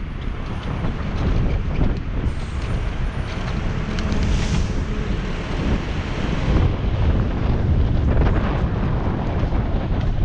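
Wind buffeting the microphone of a bicycle-mounted action camera while riding, mixed with the steady noise of city traffic, with a brief hiss about four seconds in.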